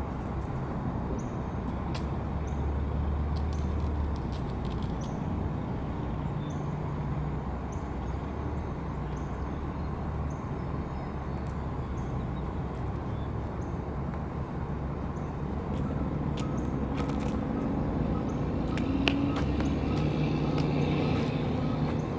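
Steady low rumble of road traffic and engines in an urban lot, with faint high chirps about once a second; a vehicle grows louder over the last several seconds.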